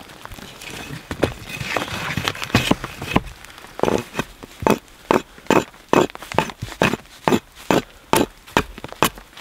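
Axe chopping into dry cedar, hewing the sides of a split board flat to make a bow-drill hearth board. A run of sharp chops, irregular at first, then steady at about one every half to three-quarters of a second.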